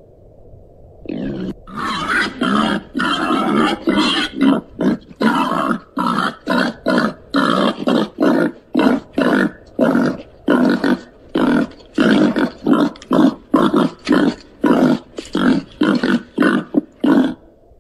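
Babirusa grunting in a long, rapid series, about two grunts a second, starting about a second in.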